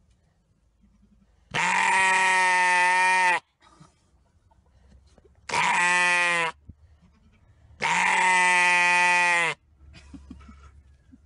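Sheep bleating loudly three times: long calls held at a steady pitch, the middle one shorter than the other two.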